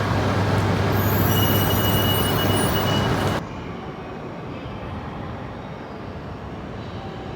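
A shinkansen train running along the platform: loud rumble with a low hum and high steady electric whine tones. It cuts off abruptly about three and a half seconds in, leaving quieter station background noise.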